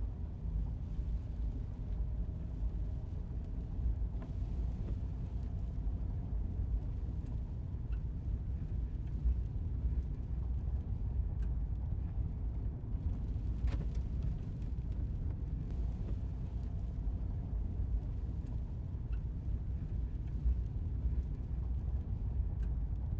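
Jeep driving, a steady low engine and road rumble heard from inside the cabin.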